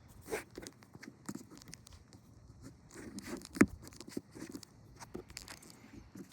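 Scattered handling noises: light clicks and rustles, with one sharp knock about three and a half seconds in.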